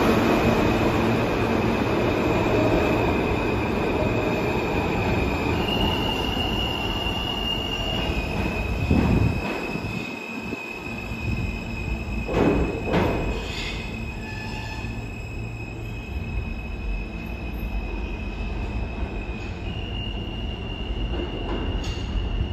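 New York City subway train running through the station, its wheels and running gear rumbling under a sustained high-pitched squeal that shifts pitch a few times. A couple of loud knocks come about nine and thirteen seconds in, and the rumble eases over the first ten seconds.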